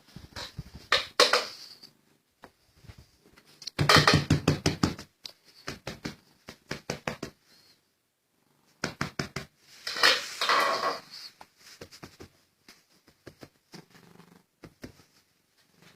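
Pet cat purring close to the microphone in loud stretches with quiet gaps between, along with knocks and rustling from the cat rubbing against things.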